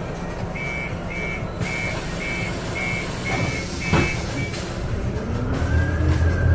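Door-closing warning beeps on a Scania Citywide CNG city bus: about eight high beeps, roughly two a second, with a thud about four seconds in. Then the bus's gas engine revs up as the bus pulls away.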